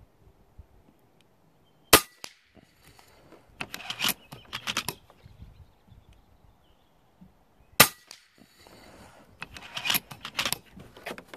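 An FX Impact .25 calibre PCP air rifle fires twice, about six seconds apart. Each shot is a single sharp crack, and each is followed a couple of seconds later by a short run of mechanical clicks and rattles.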